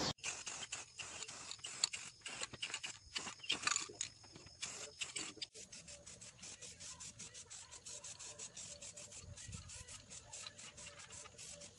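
Aerosol spray paint can: a quick run of short hissing bursts, several a second.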